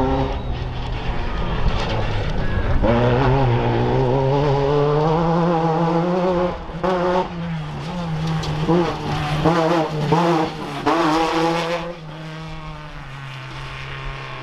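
Class 10 off-road race car's engine revving hard. It climbs through the revs about three seconds in, then rises and falls several times before settling to a lower, steadier note near the end.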